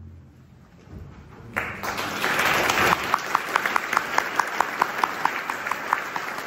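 The orchestra's last note dies away into a short lull, and about a second and a half in a concert-hall audience breaks into applause. From about three seconds in the clapping falls into unison, a steady rhythmic clap at roughly three to four beats a second.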